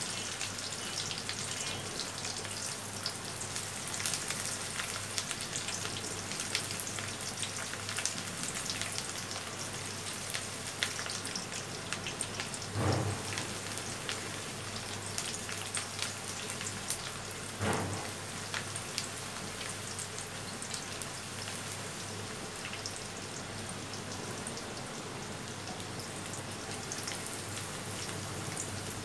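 Chopped onion, garlic and ginger frying in hot oil in an aluminium karahi, a steady crackling sizzle as a spatula stirs them: the tempering for a dal. Two knocks stand out partway through.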